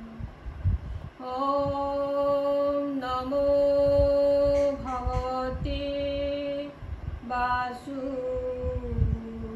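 A woman singing a devotional prayer song in long held notes, each lasting a second or two, with short breaks between them.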